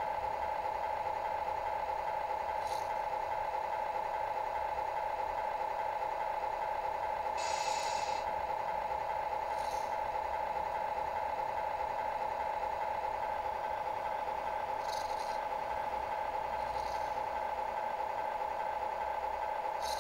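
Electric drivetrain of a Tamiya Scania R620 radio-controlled truck model running at constant speed: a steady, even whine from the motor and gears turning the axle. Short faint scrapes break in now and then, the clearest about seven and a half seconds in.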